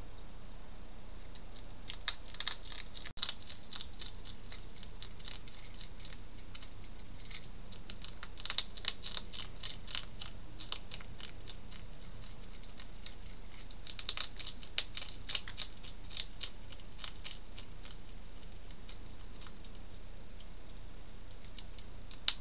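A hedgehog eating from a plate: runs of rapid, sharp chewing and crunching clicks, a few seconds at a time, over a steady hiss.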